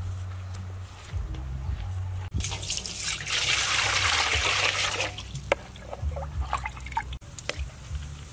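Water poured in a steady stream into a metal pot for a few seconds, starting about two seconds in, then drips and light splashes in the water as sweet potato pieces go in.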